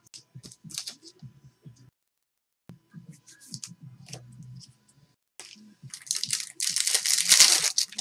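Trading cards handled with light clicks and rustles. From about six seconds, a loud, dense crinkling as a foil card-pack wrapper is torn open.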